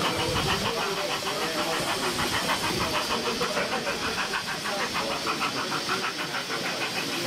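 00 gauge model train running along the layout: a small motor's rumble with rapid, regular clicking from the wheels on the track.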